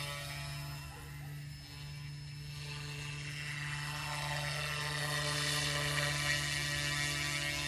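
Goosky S2 micro RC helicopter's electric motors and rotor blades running in a steady, high-pitched hovering whine over a low hum. It dips briefly about a second and a half in, then grows louder and brighter from about four seconds in.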